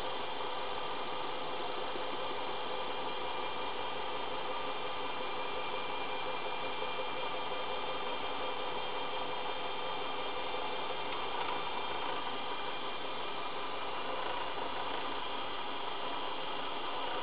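Einhell BT-ML 300 mini lathe running at a steady speed while a twist drill in the tailstock chuck bores into a spinning brass rod. The motor and drive give an even whine and hum that does not change.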